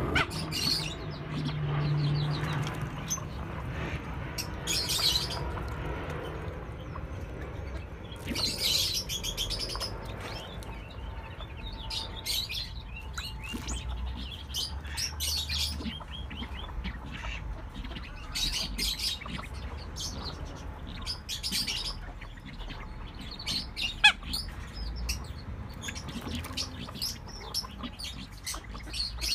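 Mandarin ducks calling: many short, high-pitched chirps and whistles in scattered clusters over a low steady rumble, with one sharp click about 24 seconds in.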